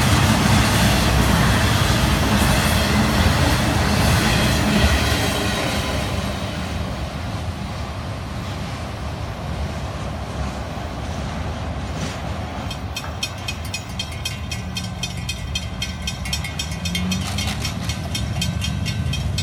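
Intermodal freight train cars rolling past on the rails, fading away as the train goes by. From a little past halfway, a railroad grade-crossing bell rings in a fast, steady repeat.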